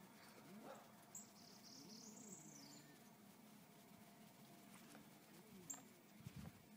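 Faint bird calls, including one high arching call about a second in, over a quiet background.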